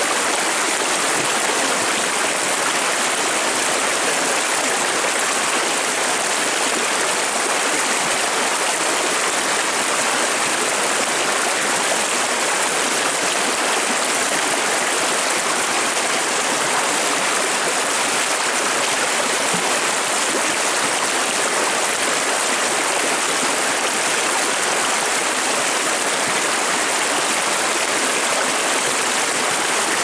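A shallow, rocky river rushing and splashing over stones in a steady, even flow.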